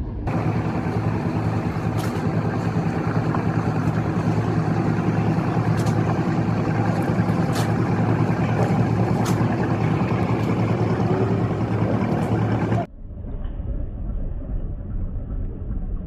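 Boat engine running steadily under way, a loud low drone mixed with rushing wind and water noise; about thirteen seconds in it switches abruptly to a quieter, duller rumble.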